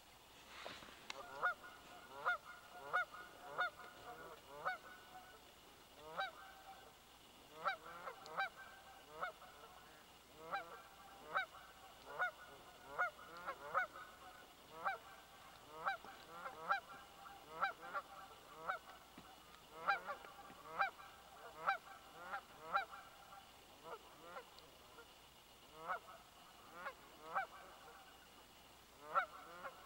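A flock of Canada geese honking: many short, repeated honks, often one or two a second, with brief lulls between runs of calls.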